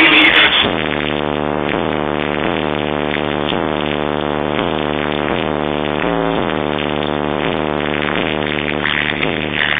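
Electronic music played loud through a car stereo: a buzzy synth tone repeating a short falling figure about every 0.7 seconds.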